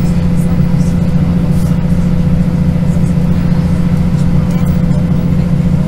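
Interior sound of a Class 156 Super Sprinter diesel multiple unit, its underfloor Cummins diesel engine giving a steady, loud drone with a constant whine above it.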